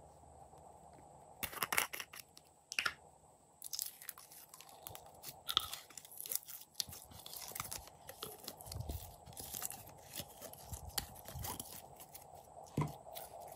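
Glossy pink slime being squeezed out of a soft plastic bottle and handled, making irregular sticky crackles, pops and clicks that start about a second and a half in.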